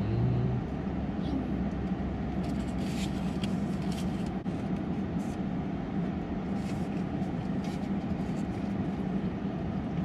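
Steady low machine hum with scattered light clicks and rustles.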